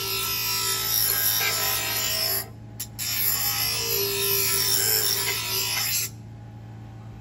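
Bench grinder sharpening the steel blade of Fiskars garden shears: a steady metal-on-wheel grinding, broken off for about half a second near the middle. About six seconds in the blade comes off the wheel and only the grinder's steady motor hum is left.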